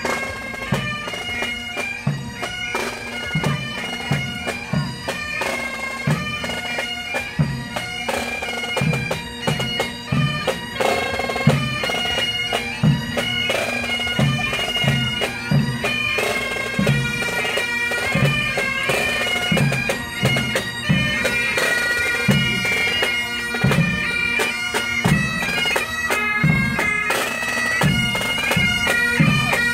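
A marching pipe band: several bagpipes play a tune over their steady drones, with a regular drum beat underneath. It grows louder toward the end.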